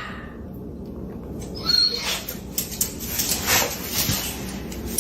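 A pet dog making a series of short, high-pitched vocal sounds, about two a second.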